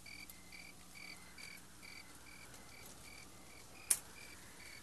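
Cricket chirping steadily, evenly spaced chirps about two a second, with one sharp click near the end.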